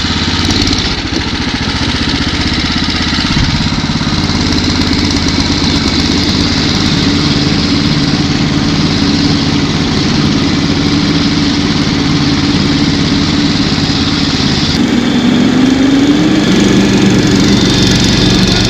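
Snow Dog tracked motor-sled's small engine running steadily while towing a loaded sled over snow. About fifteen seconds in, the engine note changes suddenly and rises briefly.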